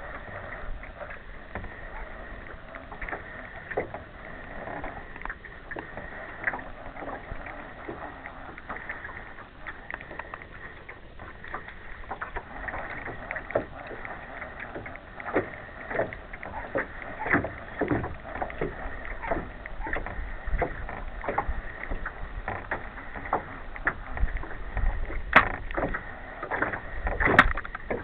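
Small waves lapping and slapping against the hull of a slowly moving boat, in irregular splashes that come more often in the second half. Two sharp knocks sound near the end.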